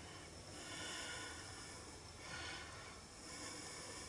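Faint breathing: a few soft breaths.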